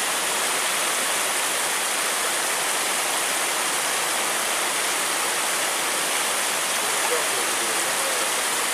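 Steady rush of flowing river water, an even unbroken noise.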